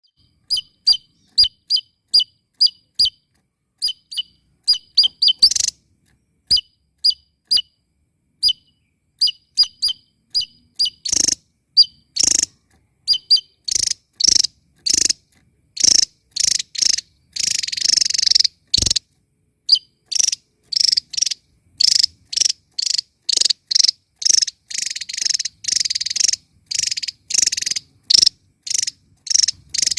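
Javan tesia singing loudly. It starts with sharp, high chips repeated about two or three times a second. From about ten seconds in these give way to a fast, crowded run of louder, harsher notes, with a longer rasping stretch a little past the middle.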